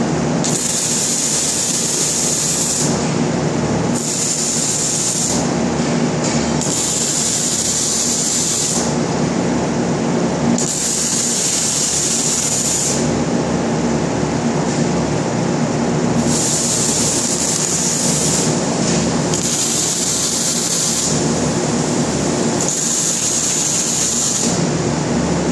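Electric arc welding on steel frames: a hissing crackle in runs of about two seconds, starting and stopping sharply about seven times with short breaks between. Steady shop noise runs underneath.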